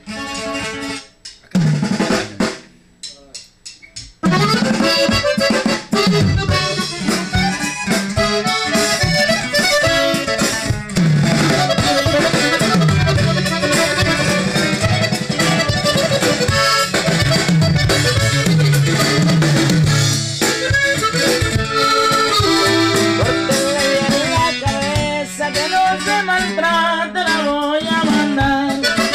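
Corrido music from an accordion, a drum kit and a guitar. A few sparse notes open it, then the full band comes in about four seconds in.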